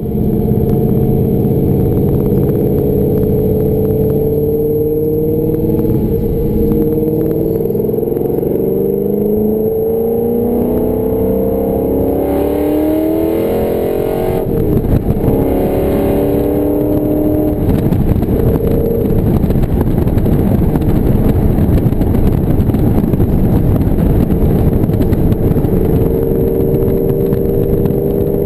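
A 2005 Ford GT's supercharged V8 running through rear-exit headers, heard from inside the cabin. It pulls hard, its pitch rising several times over the first half, then settles into a steadier, rougher drone with more road noise at cruising speed.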